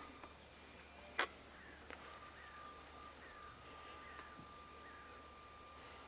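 Faint outdoor ambience with a sharp click about a second in and a softer one just before two seconds, faint short falling chirps, and a thin steady whine from about two seconds on.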